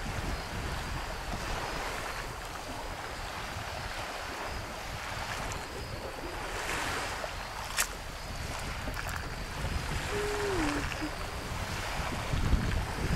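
Wind blowing across the microphone, rumbling in gusts, over a steady wash of small waves on the shore. A single sharp click comes about eight seconds in, and a brief falling tone a couple of seconds later.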